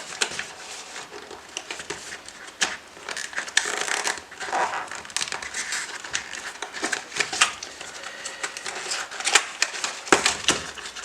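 Small electronics retail packaging being opened by hand: irregular crinkling and crackling with many scattered sharp clicks and taps.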